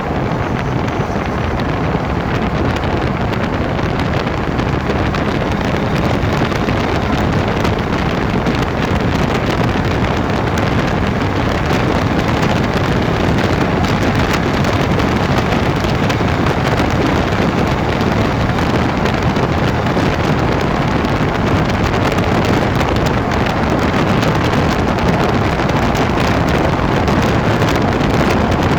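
Land Rover Freelander 2 on the move: loud, steady road and wind noise, in which the owner hears a grinding that is still there after the rear differential was replaced.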